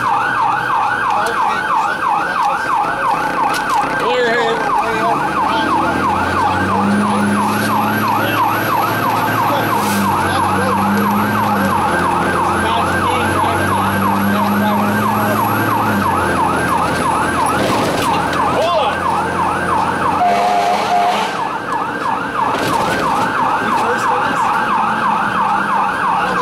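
Fire rescue truck's electronic siren in a rapid yelp, sweeping up and down without a break, heard from inside the cab. From about five seconds in to about sixteen seconds in, low horn blasts sound over it in several long pulls.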